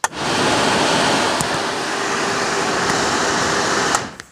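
Electric radiator cooling fan of a Yamaha Grizzly ATV running, switched on with a newly fitted manual switch: a loud, steady rush of air with a faint hum that starts abruptly and cuts off about four seconds in.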